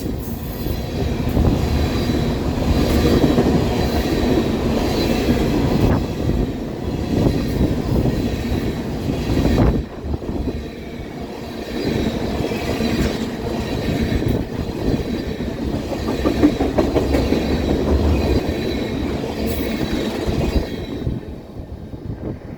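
Freight train cars rolling past, wheels knocking over rail joints with a faint high wheel squeal, over heavy wind noise on the microphone. The sound fades near the end.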